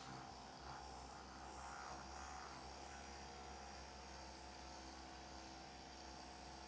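Faint, steady electrical hum.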